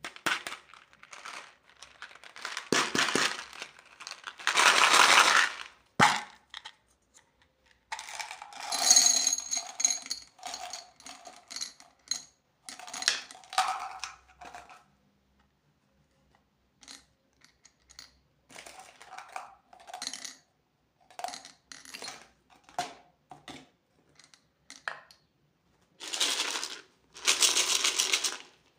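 Candy packaging being handled and opened by hand: bursts of plastic crinkling, with scattered small clicks and taps in between.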